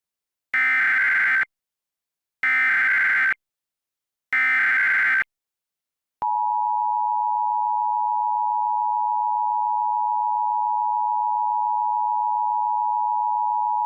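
Emergency Alert System tones: three identical one-second bursts of SAME header data, then about six seconds in the two-tone EAS attention signal, a steady dual tone just under 1 kHz that holds on. Together they are the opening of an emergency alert broadcast.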